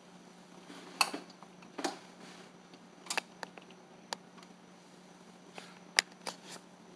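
Irregular sharp clicks and taps of a metal blind mounting bracket being handled against a window frame while its screw holes are marked with a pencil; the loudest taps come about a second in and near six seconds.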